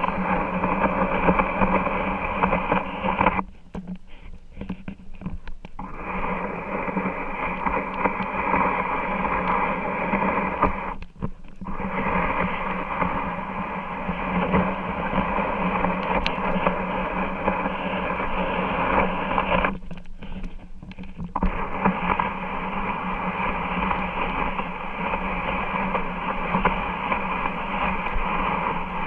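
Steady static-like hiss with a low hum under it, cutting out sharply three times for one to two seconds each.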